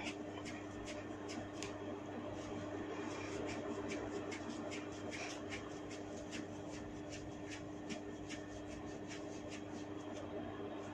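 Hair cracking: hands gripping and tugging tufts of hair on the scalp, giving a quick run of faint crackling clicks, a few every second, over a steady low hum.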